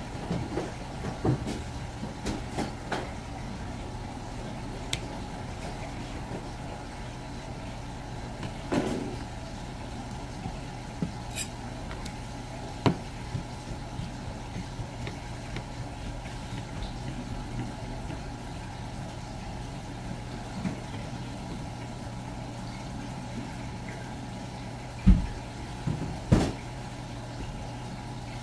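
Steady low machine hum under scattered knocks and taps of a knife and fish being worked on a cutting board, with two louder thumps near the end.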